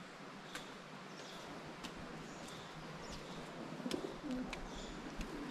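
Pigeons cooing softly, a few low coos in the second half, with faint high bird chirps repeating throughout.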